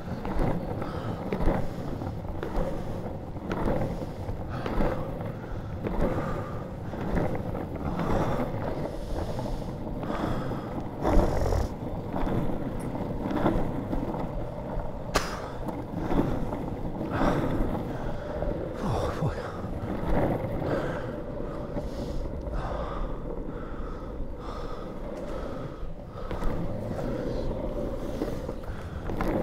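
Longboard wheels rolling over tarmac at speed: a steady rumble with a constant hum, broken by irregular knocks from the road surface, the loudest about eleven seconds in.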